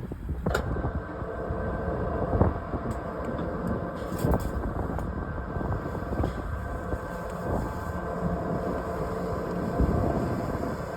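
Electric rescue winch running steadily, hoisting a patient on its cable, with a steady whine over a low rumble and a few knocks.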